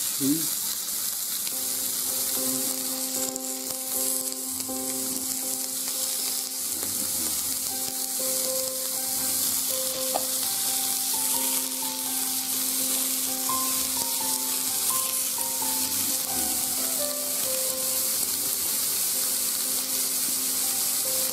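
Thin-sliced beef and shrimp sizzling steadily in oil on an electric indoor grill plate. Soft instrumental music plays faintly underneath.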